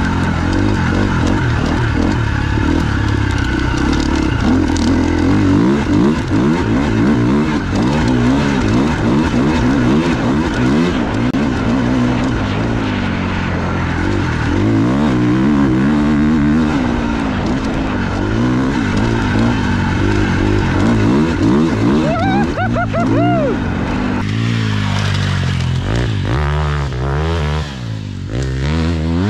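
The single-cylinder four-stroke engine of a brand-new 2021 KTM 350 XC-F dirt bike, ridden on its first run with its FMF exhaust. The revs rise and fall over and over.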